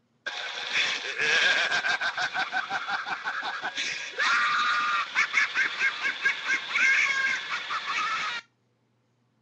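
A custom phone ringtone playing: a dense clip of rapid, overlapping high calls or cries that starts abruptly and cuts off sharply after about eight seconds.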